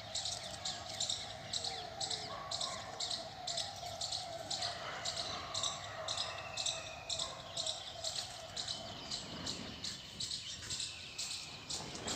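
High-pitched chirping repeating evenly, about two or three chirps a second, over a steady hum that fades out about nine seconds in.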